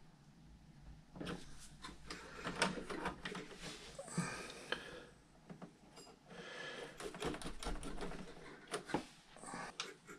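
Light, irregular clicks and scrapes of small metal hardware as a breakaway bolt is fitted into an RC boat's rudder mount and turned with a hex driver.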